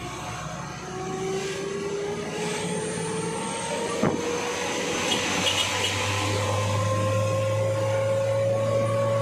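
Truck engine pulling steadily under acceleration, its pitch rising slowly and evenly throughout, with a single sharp click about four seconds in.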